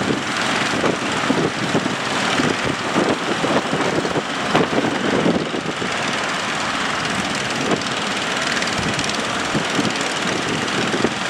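Strong wind rushing and buffeting the microphone over the steady drone of a fishing boat's engine.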